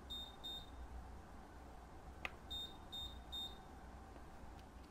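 Daktronics All Sport 5000 control console's keypad beeper giving short high beeps as its keys are pressed: two beeps right at the start, a light click, then three beeps in quick succession about two and a half seconds in.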